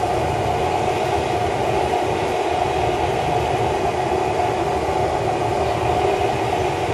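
Homemade small propane forge's burner running, a steady rushing noise with a low rumble that holds unchanged throughout.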